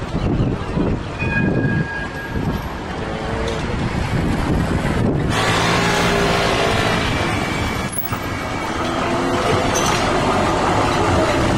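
Melbourne trams running through city street traffic: a steady rumble of passing trams and road traffic. There are a couple of brief high tones in the first two seconds. The sound changes abruptly about five seconds in, and after that a steady humming drone runs under the traffic noise.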